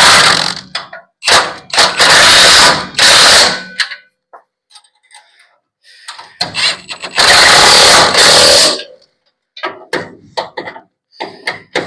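Impact wrench run in several loud bursts of one to two seconds, with a pause midway and short blips near the end, driving home the bolts of the front air-bag mounting plates.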